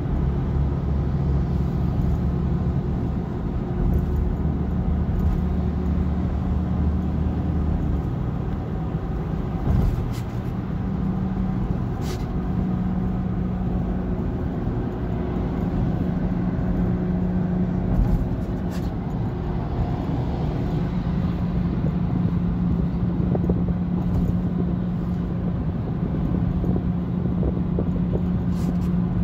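Steady engine and road drone heard from inside a car cruising on an expressway, with a constant low hum and a few faint clicks.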